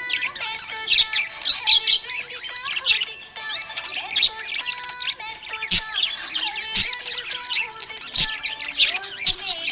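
Small pet parrots chirping and twittering continuously, many calls overlapping, with a few sharp squawks about six, seven and eight seconds in.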